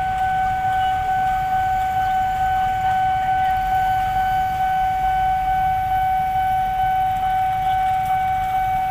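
Diesel-electric locomotive moving slowly in reverse with its train: a low engine rumble under a steady high-pitched whine held without a break.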